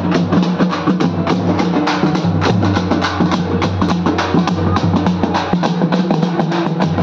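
Group of large hand-held frame drums played with fast, dense strokes, with a steady low tone underneath.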